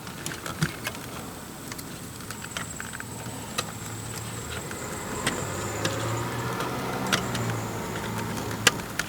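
Plastic wiring-harness connectors being handled and pushed into a car amplifier: scattered clicks and rustling, with a sharper click near the end. A low hum swells through the middle and fades.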